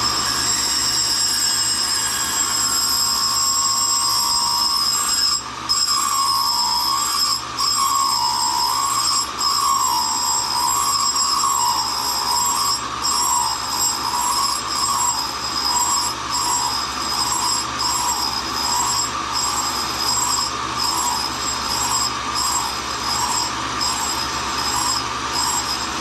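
Tool and cutter grinder running, its wheel grinding a test piece that turns in the work head as the infeed is fed in. It makes a steady whine whose tone wavers up and down about once a second.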